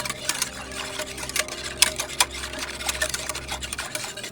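Milk, cream and gelatin being stirred in a saucepan: a utensil clicking and scraping against the pot in quick, irregular strokes.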